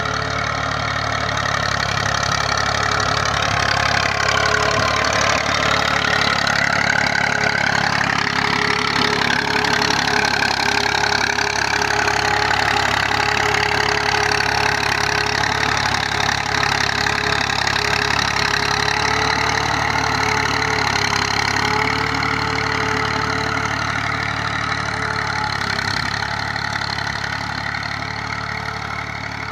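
1984-model Massey Ferguson tractor's diesel engine running under load as it pulls an 11-tine cultivator through the soil, getting louder as it comes close past and easing off near the end as it works away.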